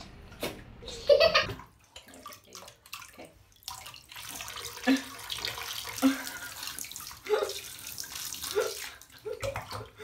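A toddler's laugh about a second in, then water running from a bath tap into the tub for several seconds, with a few short baby vocal sounds over it.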